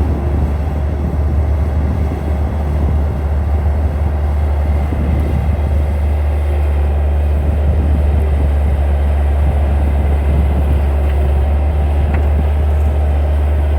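Skid steer engine running steadily, a heavy low drone with no breaks.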